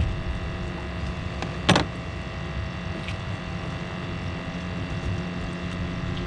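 Green mussel shell being worked open with a knife: one sharp crack about two seconds in and a few faint clicks, over a steady low mechanical drone.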